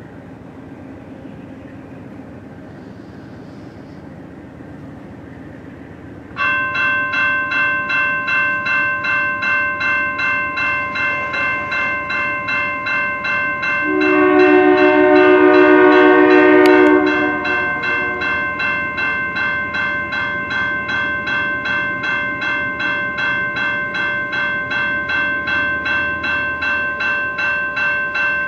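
Railroad crossing bell starts ringing suddenly about six seconds in, a steady rapid pulsing ding that keeps on, while a freight locomotive's air horn blows one long blast of about four seconds about halfway through. A low rumble of the approaching train comes before the bell.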